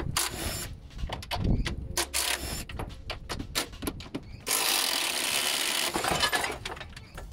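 Hand ratchet wrench clicking in short runs as it works a strut nut on a junked car. There is a steady hiss lasting about a second and a half past the middle.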